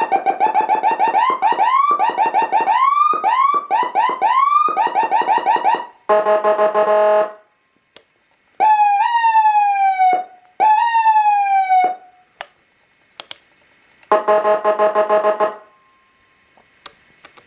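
Whelen 295HFSA5 200-watt electronic siren running through its tones. For about six seconds it plays rapid, repeating rising sweeps, then gives a steady buzzy horn tone. After a short gap come two sweeps that jump up and glide down, a few sharp clicks, and a second burst of the horn tone near the end.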